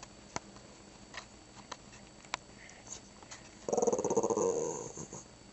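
A Shih Tzu's growly, pulsing vocalization, its "talking" attempt at a word. It lasts a little over a second and starts past the middle, after a few faint clicks in near quiet.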